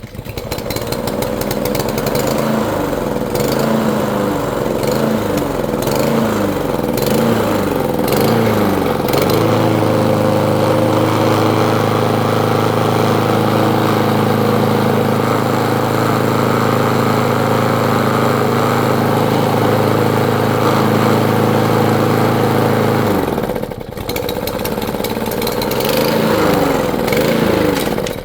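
Small petrol lawn mower engine running, its speed rising and falling repeatedly for the first several seconds, then holding steady at high speed. About 23 seconds in the speed drops sharply, then rises and falls again.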